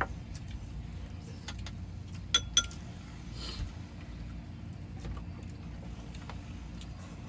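A small boat's engine running with a steady low rumble. A few sharp clicks sound over it, and about two and a half seconds in there are two loud ringing metallic clinks.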